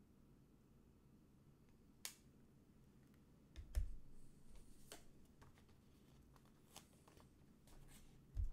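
Scattered small clicks and taps of hands handling things at a desk, with two low thumps, one a little past a third of the way in and one near the end.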